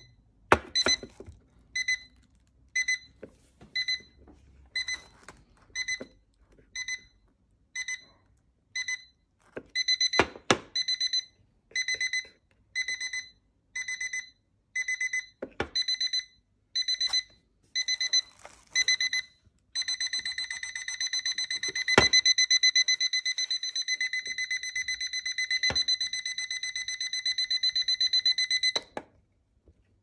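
aboveClock digital alarm clock's alarm going off: a high electronic beep about once a second, changing to beeps in pairs about ten seconds in and to fast, nonstop beeping about twenty seconds in, the escalating alarm pattern, until it cuts off near the end. A few sharp clicks and knocks from handling the clock fall in between.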